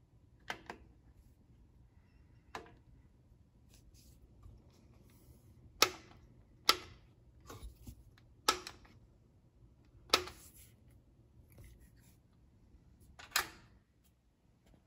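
Push buttons on the front panel of a Sony STR-S5 stereo receiver clicking as they are pressed: about seven sharp clicks at uneven intervals, with a few softer ones between.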